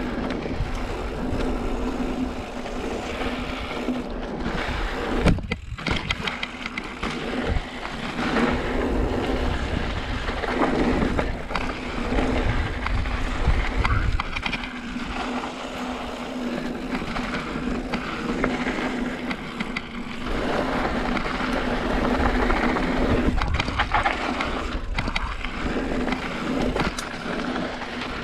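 Mountain bike riding over a trail of loose rock and dirt: continuous tyre and air rush with frequent rattles and knocks from the bike on rough ground.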